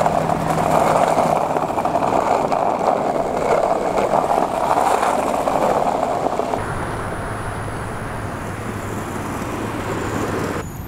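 Traffic noise from cars moving and queuing at a busy gas station. About two-thirds of the way through, it changes abruptly to a quieter, steadier road hum.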